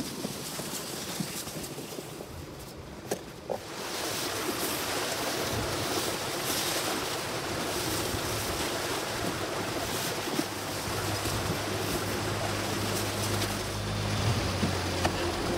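Steady scraping hiss of a snow dump (mama-san dump) shovel being pushed over wet, heavy snow. From about eleven seconds in, the low hum of a wheel loader's engine comes in and grows louder as it approaches.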